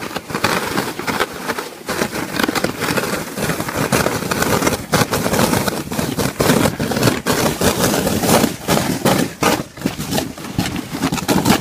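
A sled sliding fast down a packed-snow slope: a continuous hissing scrape over the snow, broken by many quick bumps and jolts.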